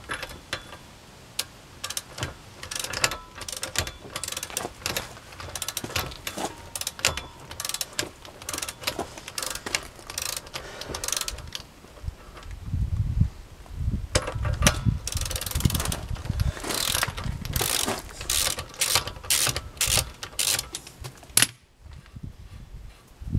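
Ratchet wrench with a 30 mm socket clicking in quick runs as it is worked back and forth to loosen the propeller nut on a Volvo Penta DP duoprop stern drive, the drive put in gear so the propeller holds still. Low thumps and rumble join the clicking in the second half.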